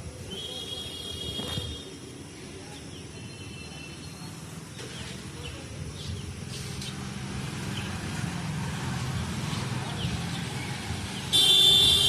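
Street traffic rumbling steadily and slowly growing louder, with a few brief high-pitched tones near the start and a loud, high-pitched blast about eleven seconds in.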